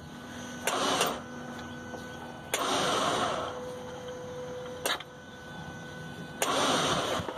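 Ignition key switch of a Yamaha F250 EFI outboard clicked to key-on about four times, roughly every two seconds. Most clicks are followed by a short rushing whirr as the electric fuel pump powers up to pressurize the fuel system.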